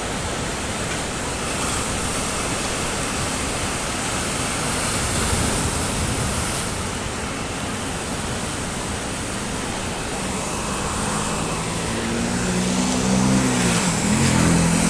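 Sea surf breaking and washing, a steady rushing noise that swells about five seconds in. Near the end a low drone with a wavering pitch rises over it.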